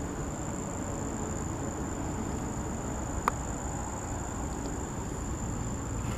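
Insects singing in one steady, unbroken high tone over low background noise, with a single click about three seconds in.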